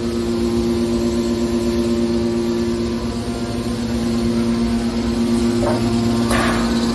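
Hydraulic scrap metal baler running, its pump and motor giving a loud, steady hum, with a brief noisy burst of sound about six seconds in.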